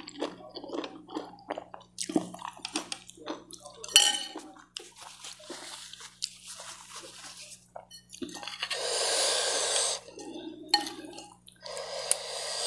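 Close, wet eating sounds: slurping and chewing saucy fried noodles, with sharp lip smacks and clicks, mostly in the first few seconds. A breathy hiss lasting over a second comes about two-thirds of the way through, and metal cutlery clinks on the ceramic bowl near the end.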